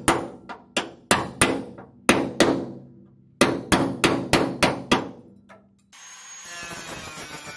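Hammer driving a steel chisel into a spot-welded sheet-metal seam of a Mazda Miata floorpan, a run of sharp ringing metal strikes about three a second with one short pause, splitting the welds to free the original floorpan. About six seconds in the strikes stop and an angle grinder starts running with a steady whine.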